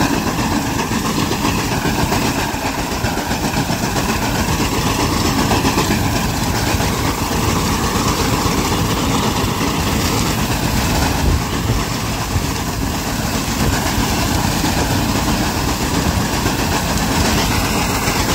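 Eicher 241 tractor's single-cylinder air-cooled diesel engine running steadily under load, with the fast clatter of its front-mounted reaper cutting standing wheat.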